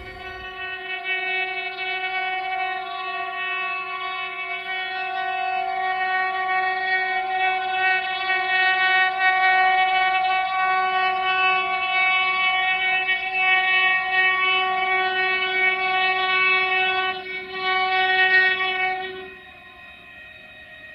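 Air horn of a DB Cargo diesel locomotive sounding one long, steady blast that lasts nearly twenty seconds. It grows louder as the locomotive draws nearer, then cuts back sharply to a faint tone near the end.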